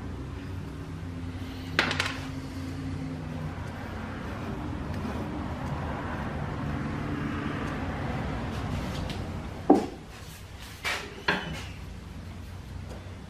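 Cast-iron and steel parts of an antique Pickering steam-engine governor clinking and knocking as they are handled in a bench vise: one clink about two seconds in, a sharp knock near ten seconds that is the loudest sound, then two more clinks shortly after, over a low steady hum.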